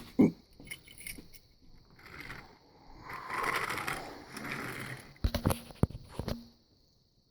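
Small toy cars being handled on a hard surface: light clicks and knocks, with a stretch of scraping in the middle and a few sharp knocks near the end.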